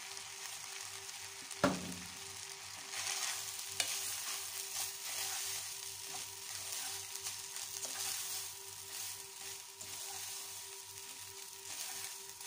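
Raw rice and short vermicelli being stirred with a wooden spoon in a hot non-stick pot, the dry grains scraping and rustling over a light sizzle as they toast. A single sharp knock about two seconds in, and a faint steady hum underneath.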